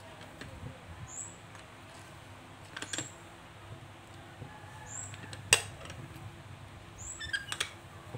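Pineapple chunks being moved on a wooden chopping board, with soft knocks and one sharp click about five and a half seconds in. A short high chirp, like a small bird's, comes every couple of seconds.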